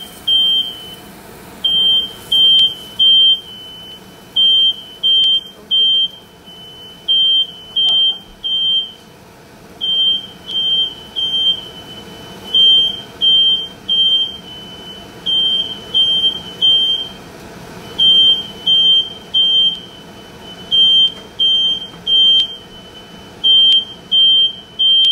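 Smoke alarm sounding its three-beep pattern: a loud, high beep three times in a row, then a pause, repeating every two to three seconds. It was set off by the pan-frying potstickers.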